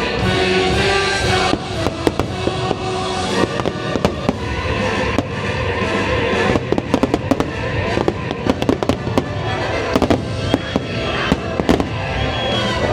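Fireworks show finale: many fireworks bursting and crackling in quick runs over the show's soundtrack music.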